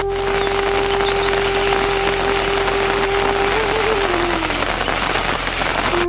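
Heavy rain falling in a steady hiss. A thin melody line holds one note over it, wavers briefly and drops away a little past the middle.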